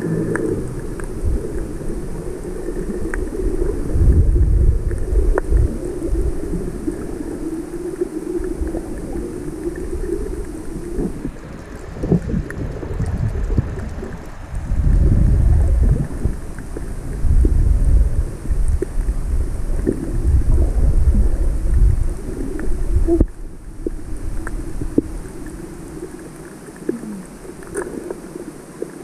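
Muffled underwater sound through a camera's waterproof housing: water rumbling and sloshing in low surges with a steady low hum beneath, and scattered faint clicks.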